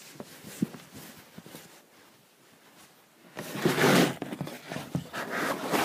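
Handling noise of a phone held against a polo shirt: a few soft knocks and rustles, then, from about three and a half seconds in, loud uneven rubbing of fabric over the microphone.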